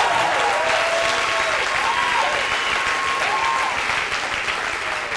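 Large audience applauding, the clapping tapering off toward the end.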